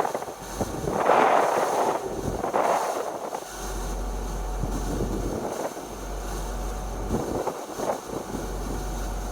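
Wind buffeting the microphone in gusts, with a steady low rumble setting in about three and a half seconds in.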